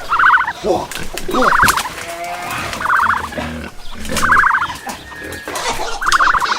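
Turkey gobbling: five short, rapidly pulsed gobbles about a second and a half apart, with fainter calls between them.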